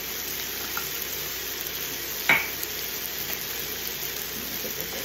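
Chicken breasts sizzling steadily in a nonstick frying pan, with one sharp click a little over two seconds in.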